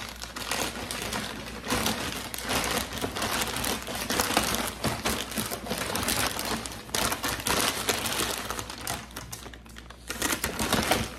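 White plastic mailer bag crinkling and rustling as it is pulled and torn open by hand, with scissors cutting into the plastic near the end.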